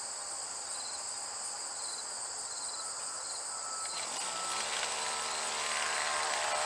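Steady chirring of crickets or other insects, then about four seconds in the Snapper commercial brush cutter's small two-stroke engine revs up, rising in pitch, and holds at high speed.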